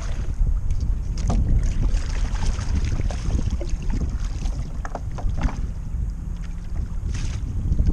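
Strong wind buffeting the microphone on a kayak out on the water, a heavy uneven rumble, with scattered light knocks and splashes against the hull.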